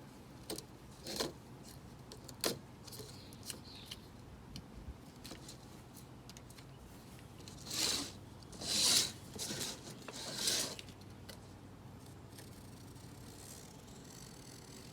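Knife slicing excess screen mesh along the edge of a window screen frame. A few light clicks come first, then four short scratchy cutting strokes around the middle.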